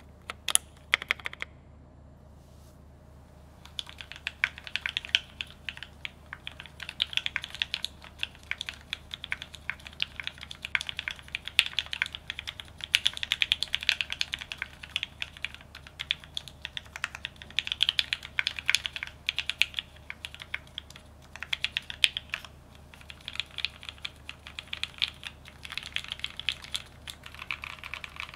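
Typing on a 65% aluminium-plate mechanical keyboard with lubed, filmed H1 switches and GMK keycaps: a few keystrokes, a pause of about two seconds, then steady fast typing.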